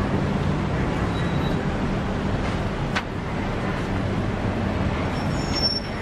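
Steady road-traffic rumble with a vehicle engine running close by, a single sharp click about halfway through, and a thin high tone coming in near the end.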